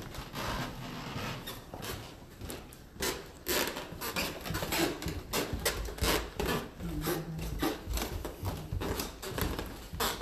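Footsteps on a wooden floor and down a flight of stairs: a quick, uneven series of knocks, a few each second.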